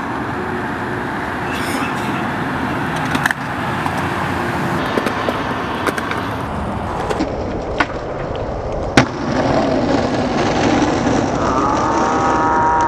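Skateboard wheels rolling on concrete with a steady rushing sound, broken by a few sharp clacks of the board, the loudest about nine seconds in. A short pitched whine joins near the end.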